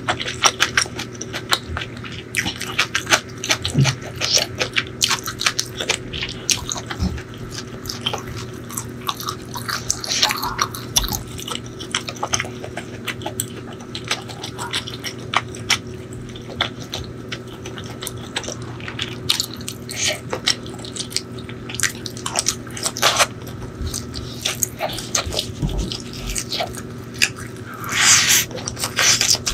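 Close-miked chewing of spicy chicken liver and gizzard curry with rice: wet mouth sounds with many small irregular clicks and smacks. Near the end comes a louder rustle as a handful of rice is pushed into the mouth by hand.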